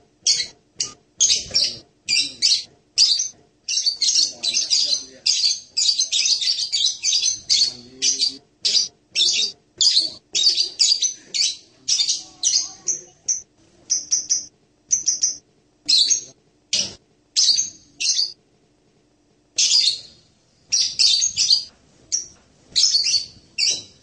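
Blue-crowned hanging parrot (serindit, Loriculus galgulus) giving a rapid series of short, high-pitched chirps, several a second, with a brief pause about three-quarters of the way through before the chirping resumes.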